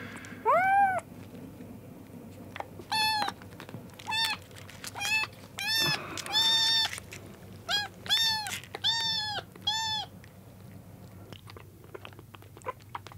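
Very young kittens mewing in short, high-pitched cries, about a dozen over the first ten seconds, one drawn out a little longer, while they are bottle-fed milk and jostle for the bottle. The last few seconds are quieter.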